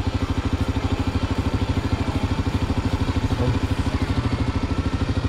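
Honda XR250 Tornado's air-cooled single-cylinder four-stroke engine idling steadily, an even pulse of about a dozen beats a second.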